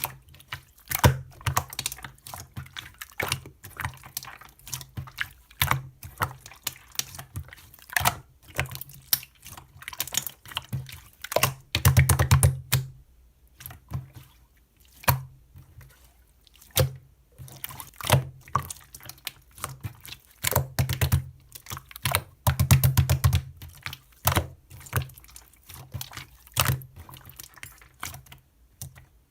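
Keyboard typing, likely a mechanical keyboard: irregular runs of key presses, each a sharp click over a deep thud, with two fast, dense flurries and a few short pauses. The keystrokes are described as poppy, bouncy and chewy (퐁당 탱글 쫀득).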